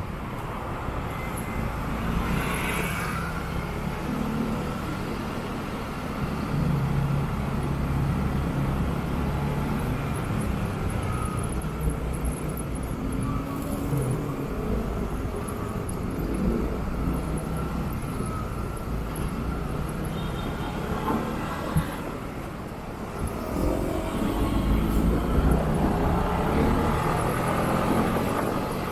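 Motorcycle engine running in city traffic, its pitch drifting up and down with speed, over steady road and wind noise. It gets louder for a few seconds near the end.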